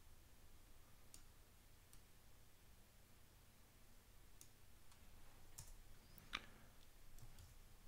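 Near silence broken by a few faint computer mouse clicks, the loudest about six seconds in.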